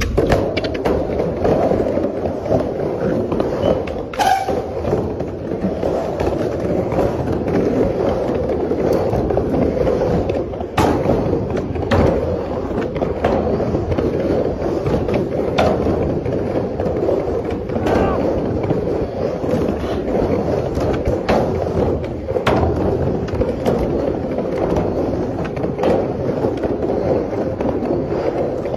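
Skateboard wheels rolling steadily over rough concrete, with a few sharp clacks from the board.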